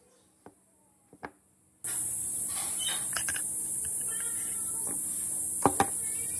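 Short clicks and taps of a small gear motor's metal parts, its rotor and stator plate, being handled and pulled apart. About two seconds in, a steady high hiss starts abruptly and holds. Two sharper clicks come near the end.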